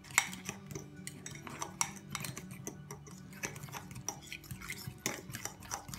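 A metal spoon stirring a thick mix of oat flakes, yogurt and egg in a ceramic mug, scraping and clinking against its sides in quick, irregular taps.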